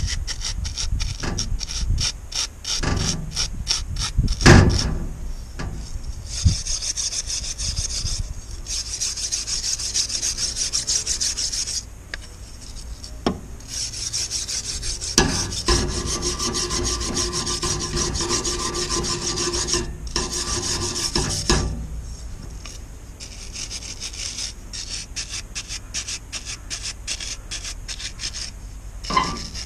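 Small brass wire brush scrubbing aluminium window fittings and an aluminium strip, in fast back-and-forth rasping strokes that come in runs with short pauses. One stroke about four seconds in is sharper and louder than the rest.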